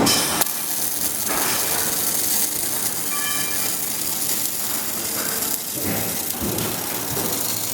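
Steady mechanical noise with a hiss, as from industrial machinery running.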